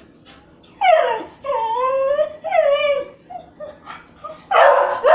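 A beagle whining in three drawn-out, wavering cries that fall in pitch, begging for something out of reach. About a second and a half later comes one loud, short bark.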